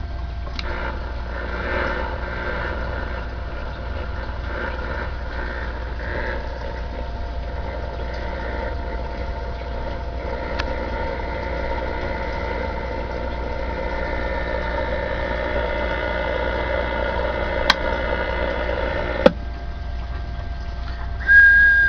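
DAK Mark 9 CB radio's speaker hissing with static over a steady mains hum and a faint steady whistle, the noise slowly swelling. Near the end come two sharp clicks about a second and a half apart, the noise dropping back after the second, then a short high beep.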